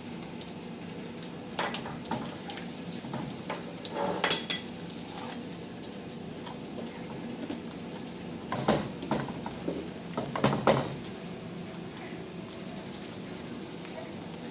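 Utensils clinking and scraping against pots and dishes in a few short bouts, over a steady faint hiss.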